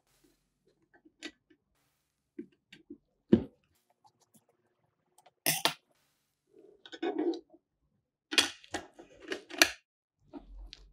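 Handling sounds from small parts being fitted into a toy truck's cab: scattered light clicks and taps, a sharp knock about three seconds in, and clusters of louder clicks and rattles in the second half.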